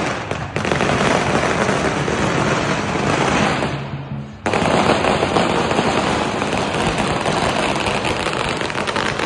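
Strings of firecrackers going off in a loud, dense, rapid crackle that dips briefly and starts again sharply about four and a half seconds in.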